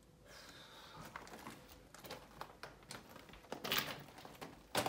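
Footsteps crunching on loose track ballast, irregular steps that grow louder towards the end.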